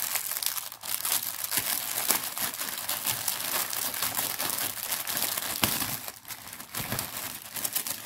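Plastic wrapping crinkling and rustling without a break as it is opened and pulled off, with a short lull about six seconds in.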